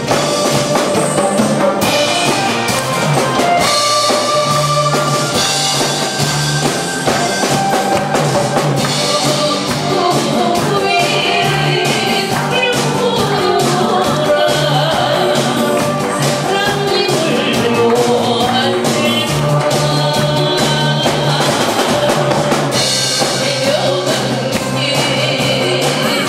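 A woman singing a Korean trot song into a microphone over accompaniment with a drum kit.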